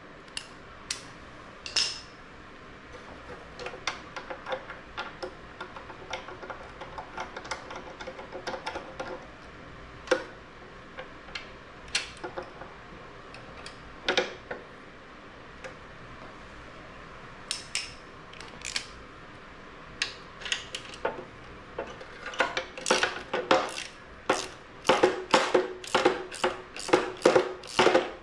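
Hand tools clinking on metal as bolts on a motorcycle subframe are worked loose, in scattered sharp clicks. From about two-thirds of the way in, a ratchet wrench clicks in a quick, even run of about two to three strokes a second.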